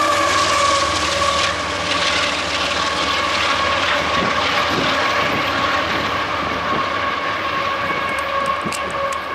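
CSX freight train's diesel locomotive running away down the line. A steady high whine and a lower tone sit over the engine and wheel noise, with a few light rail clicks about halfway through. It grows quieter near the end.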